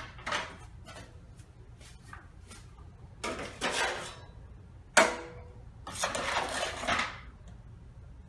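Metal drywall tools being handled: light clicks and clinks, one sharp metal clank about five seconds in, then a scraping as joint compound is worked out of a mud pan onto a metal hawk with a taping knife.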